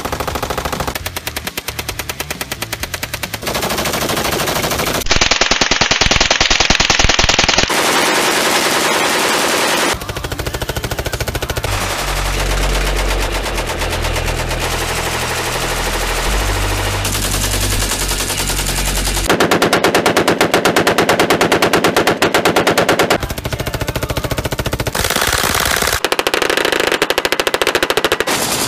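Fully automatic gunfire from one gun after another, including a roof-mounted machine gun and AK-pattern rifles: long, rapid strings of shots. The tone and loudness change abruptly every few seconds as one burst gives way to the next.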